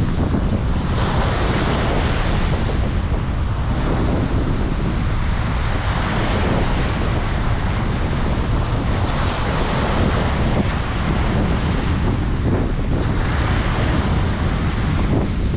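Ocean waves breaking and washing up the shore, swelling and easing every few seconds, with wind rumbling on the microphone.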